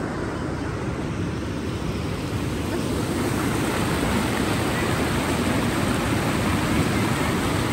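Steady rushing of a waterfall, an unbroken noise of falling water.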